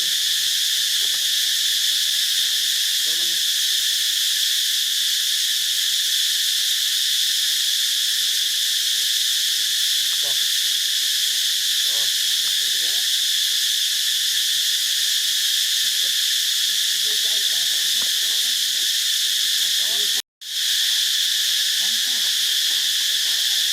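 Steady, high-pitched drone of an insect chorus, crickets or cicadas, that holds unchanged and cuts out for a moment a few seconds before the end.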